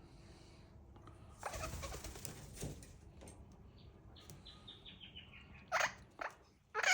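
Australian king parrots' wings flapping in a short whoosh as they fly in. This is followed by a quick falling run of short high notes and then loud, harsh screeching calls near the end.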